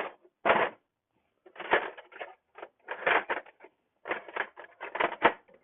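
Metal hand tools, wrenches, clinking and rattling as they are picked out and handled, in short irregular clatters about a second apart.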